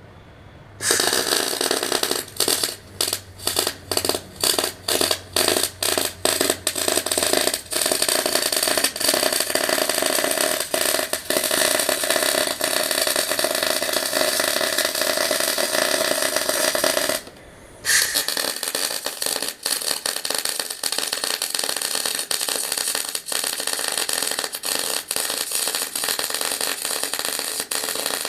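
Welding arc crackling on steel: a string of short stop-start bursts, then long continuous runs of welding with one brief pause about two-thirds of the way through.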